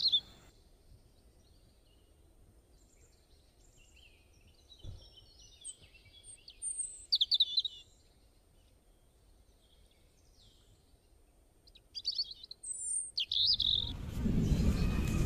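Small birds chirping in short, scattered bursts over a quiet outdoor background, with a cluster of quick chirps about twelve seconds in. Near the end a louder, steady noisy ambience comes in.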